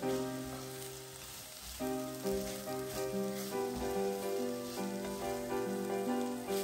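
Background music, a melody of short, distinct notes, over a light sizzle of shredded dried filefish stir-frying in a pan as chopsticks toss it.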